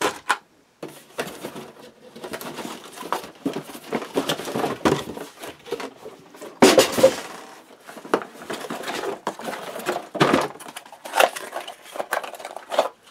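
Packaging from an unboxed RC car being handled: irregular rustling with many small knocks and clicks, louder for a moment about seven seconds in and again near ten seconds.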